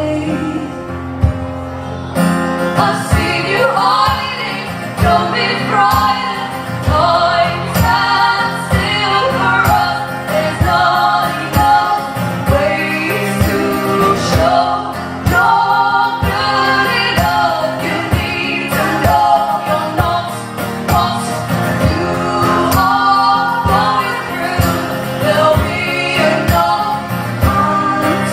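Live folk-pop song: women's voices singing over strummed acoustic guitar with a steady rhythm.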